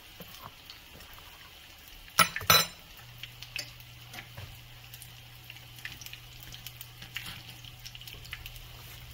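Hot oil frying in a pan: a faint crackling sizzle with scattered pops. Two loud crackly clatters come a little after two seconds in, and a low steady hum starts about a second later.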